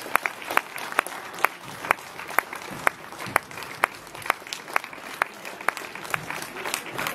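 Spectators applauding, with loud claps beating a steady rhythm about twice a second over looser clapping.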